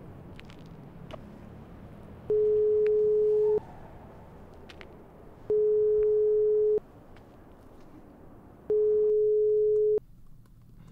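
Telephone ringback tone heard by the caller while the call rings out: three steady single-pitch beeps of a little over a second each, about three seconds apart.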